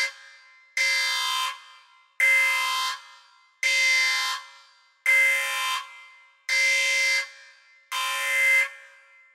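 A loud electronic alarm-like beep repeating about every one and a half seconds: six sharp-starting pulses, each held for most of a second and then fading.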